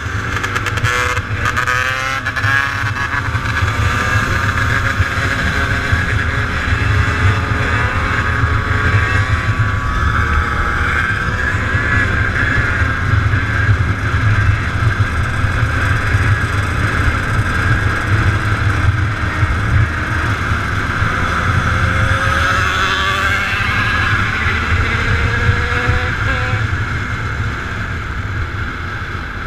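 Dirt bike engines running, their pitch rising and falling as they rev, over a steady low rumble; the sound fades slightly near the end.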